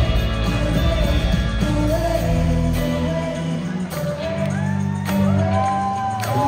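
Live indie-pop band playing, with a woman singing lead into a microphone over bass and keys. The deepest bass drops out about three seconds in, leaving the voice over lighter backing.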